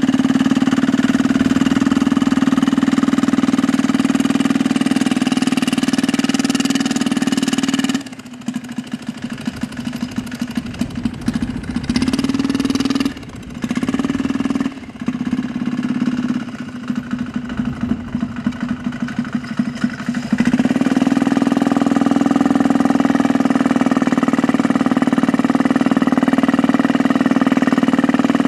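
Small 198 cc single-cylinder diesel engine running at a steady speed. About a third of the way in the sound turns choppy and uneven for around twelve seconds, then steadies again.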